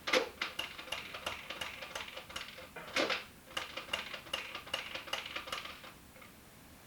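A spoon clinking and scraping in a cereal bowl: a quick run of light, ringing taps, with two louder knocks, one at the start and one about three seconds in.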